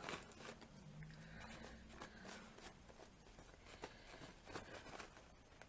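Faint, soft rustling and small ticks of a thin 3-ply paper napkin as its layers are peeled apart by hand, over low room hum.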